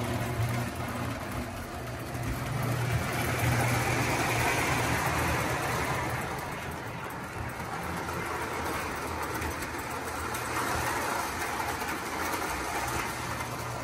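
Lionel O-gauge model trains running on the layout's three-rail track: a steady low hum with wheel noise along the rails that grows louder twice as trains pass close by.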